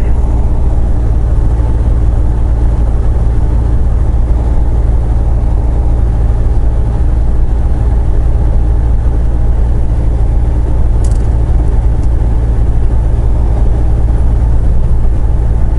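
Semi truck's diesel engine and road noise heard from inside the cab while driving at speed: a loud, steady low drone with faint steady engine tones above it.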